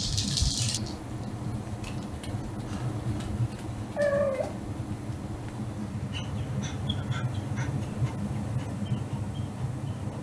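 A pet cat gives one short meow about four seconds in, over a steady low hum. A brief hissing rustle comes at the very start, and a few light ticks follow later.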